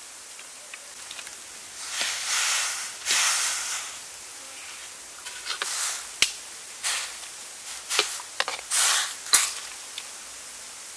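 Instant noodles worked with a ladle in a pot of boiling water: several splashy swishes of water and a couple of sharp clinks of the ladle against the pot, over a steady hiss of boiling.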